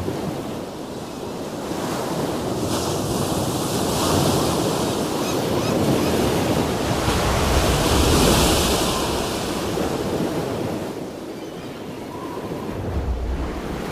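Heavy ocean surf breaking and crashing on a rocky shore, with strong wind blowing over the microphone. The wash swells to its loudest about eight seconds in, eases off, then builds again near the end.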